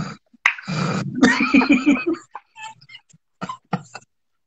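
A man laughing hard in a quick run of pulses, followed by a few short, sharp breathy sounds.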